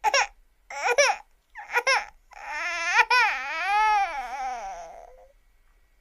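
Cartoon crying sound effect: three short, high, quavering sobs, then one long wavering wail that sinks in pitch and fades away.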